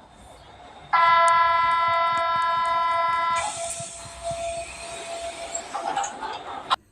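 Train horn blowing one steady note for about two and a half seconds, then the noise of the running train, which cuts off abruptly.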